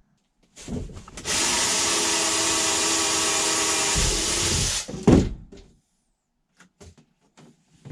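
Power drill running steadily for about three and a half seconds, drilling a hole through the bed trim piece from the back side, followed by a loud knock and a few light clicks as it is handled.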